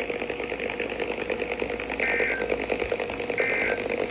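Emergency Alert System end-of-message data bursts: short, buzzy, high two-tone digital chirps about a second and a half apart, twice, over crackling radio static with a steady hum. They mark the end of the alert message.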